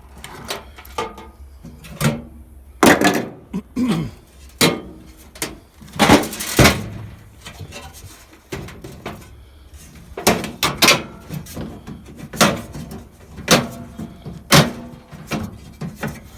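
Irregular metallic clanks, knocks and rattles from a microwave's sheet-metal casing and parts being pulled and bent apart by hand. There is a quick flurry around the middle, and a slower run of single knocks later on.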